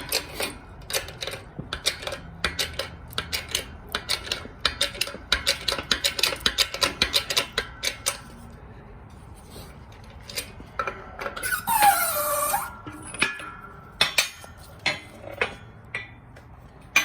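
Rapid metallic clicking and clinking of hand tools on the steel pulling setup and aluminum control arm, several clicks a second for the first eight seconds. A short squeal falls in pitch about twelve seconds in, then come a few scattered clicks and knocks.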